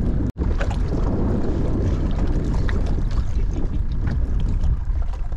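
Steady low rumble of wind buffeting the microphone on a small open boat. The sound drops out abruptly for an instant about a third of a second in.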